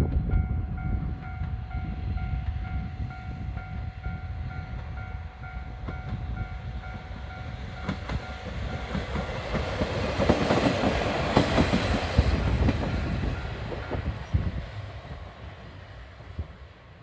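A KiHa 32 diesel railcar rolling past a level crossing, its wheels clicking over the rail joints; it grows loudest about ten to thirteen seconds in, then fades. Behind it the crossing's warning bell dings at a quick, even rate and stops a few seconds before the end.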